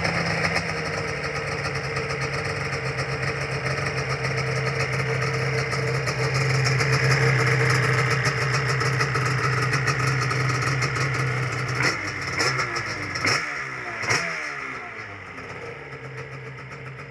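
Two-stroke engine of a vintage stand-up jet ski, just started, running steadily with a rapid crackle. A few quick throttle blips come near the end, and then the revs fall back to a lower steady run.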